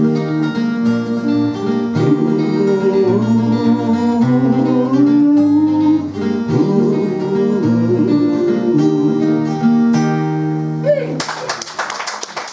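Two acoustic guitars with singing, a folk song played live and brought to its close about eleven seconds in. Audience applause starts as the music ends.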